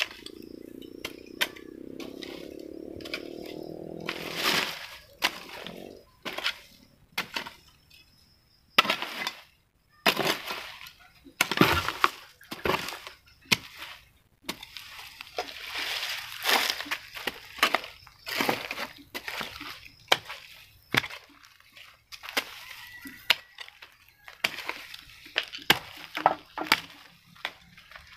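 Hand hoe chopping repeatedly into soil, dry fronds and rubbish, giving irregular sharp strikes and scraping crunches. A droning sound rising slightly in pitch runs through the first four seconds or so.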